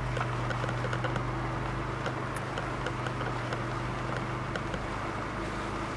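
A car driving, with steady road and engine noise, a low hum that fades out about five seconds in, and scattered small ticks.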